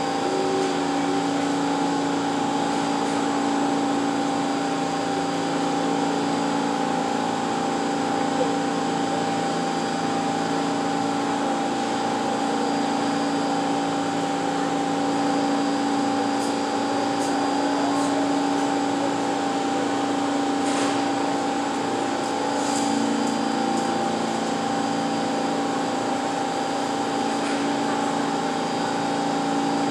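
Subway car standing at the platform with its doors open, its air-conditioning and on-board equipment running with a steady hum and hiss.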